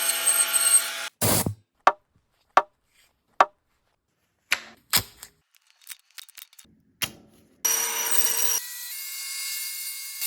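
Bandsaw cutting through a wooden block in short edited snippets: about a second of cutting, then a string of separate sharp knocks and clicks with dead silence between them, then the saw cutting again near the end.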